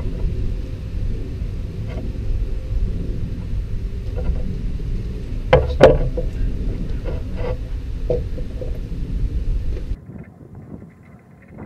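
Wooden blocks knocking and clattering as they are handled and set on a workbench, loudest twice just before and around six seconds in, over a steady low rumble that cuts off abruptly near the end.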